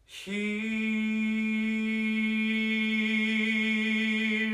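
A singer holds the final sung word "here" as one long, steady note, unaccompanied, ending the song.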